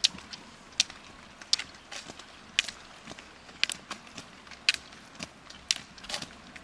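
Roller-ski pole tips clicking on asphalt as a skier skates uphill: a sharp click about once a second, with fainter ticks in between.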